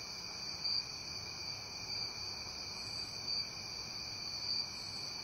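Crickets chirping steadily at night, a continuous high-pitched trill.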